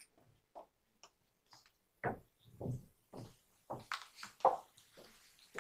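Footsteps on a hard floor and handling thumps at a lectern, from a microphone and papers: about a dozen soft knocks at irregular intervals, the loudest about two seconds in.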